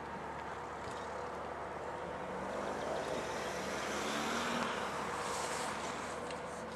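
Distant Class 55 Deltic diesel locomotive approaching with a train, its twin Napier Deltic two-stroke engines making a steady rumbling drone that grows louder toward the middle and eases a little near the end.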